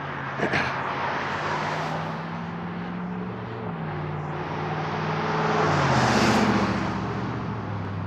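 Engine of a passing motor vehicle: a steady hum whose pitch steps a couple of times, swelling to its loudest about six seconds in and then fading.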